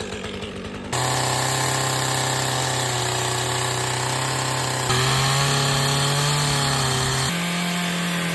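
Chainsaw running at high speed as it cuts into oak, coming in loud about a second in; its pitch steps up abruptly twice, about five and seven seconds in.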